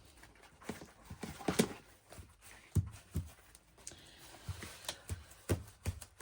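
Light, irregular taps and knocks of paper pieces and small craft items being handled and pressed down on a tabletop, with a little paper rustling.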